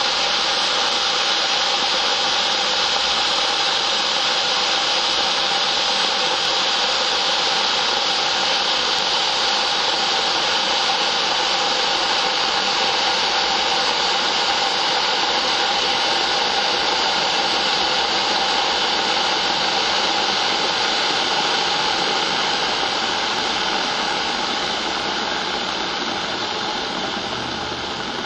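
Kettle at or near the boil, a steady rushing hiss of boiling water and steam with no whistle, easing off slightly near the end.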